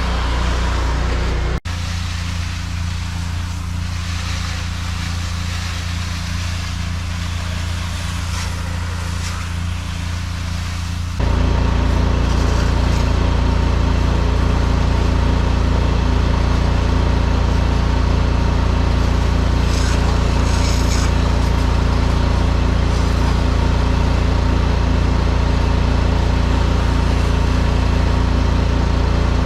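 Pressure-washing rig's engine running steadily, with a steady hiss over it; the sound steps up louder about eleven seconds in.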